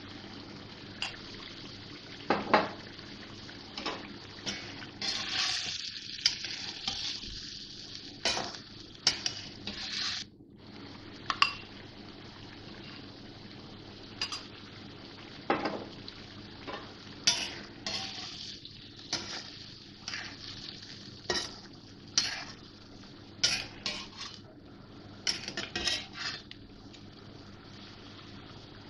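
A metal spoon knocking and scraping against a bowl and an iron karahi as green masala paste goes in spoonful by spoonful, with a steady sizzle of chicken frying in oil underneath. The knocks come irregularly, every second or two.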